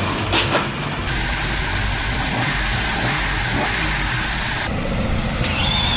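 A steel roller shutter rattles briefly as it is pulled up. From about a second in, a car engine is running steadily.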